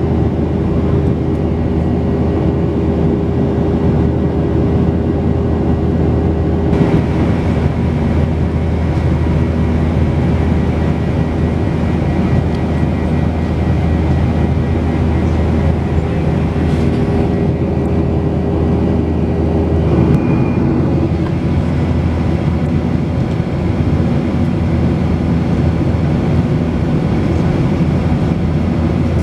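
Steady engine and airflow noise heard inside the cabin of a Boeing 737-800 airliner, a continuous rush with a low hum from its CFM56 turbofans. The tone of the noise shifts slightly twice.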